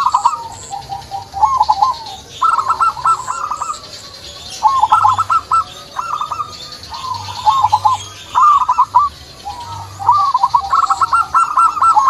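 Zebra doves (perkutut) cooing: repeated phrases of quick, rippling coo notes, one phrase after another, several overlapping near the end.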